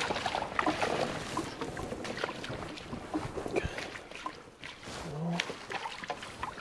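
Irregular clicks and knocks of fishing gear and a canoe as a hooked walleye is reeled in and handled at the boat.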